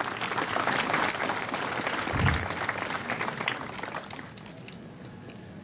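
Audience applauding, a dense patter of many hands clapping that fades away after about four seconds. A brief low thump sounds about two seconds in.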